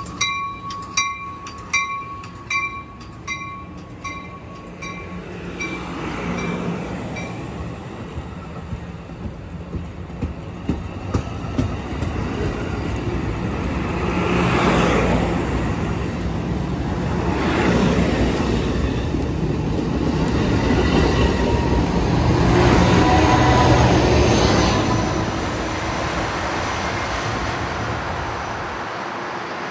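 A bell rings about twice a second and fades out within the first few seconds. Then Amtrak Pacific Surfliner bilevel passenger cars roll past, their wheels rumbling and clattering on the rails, with the sound swelling several times as cars go by.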